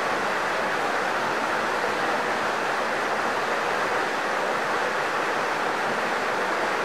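Steady rushing of running river water, an even hiss that does not change.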